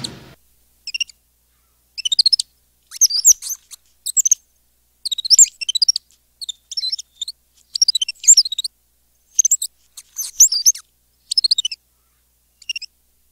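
Birdsong: short, high chirping phrases of quick rising and falling notes, about one a second, with dead silence between them.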